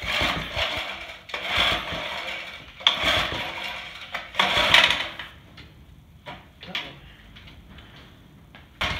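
A Briggs & Stratton engine on an old Simplicity walk-behind tractor is pull-started four times in quick succession, each yank of the recoil starter cord a second-long whirring rattle, with the loose starter shroud clattering. The engine cranks but never fires: its points ignition is giving no spark because the condenser wire is cut. A few lighter knocks follow.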